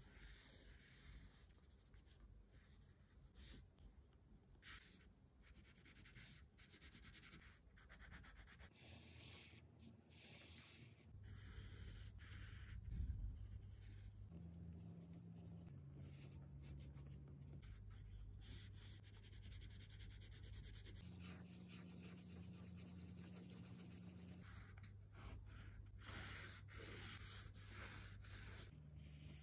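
Faint pencil strokes scratching on sketchbook paper, coming in short spells and pauses, with a soft low bump about halfway through.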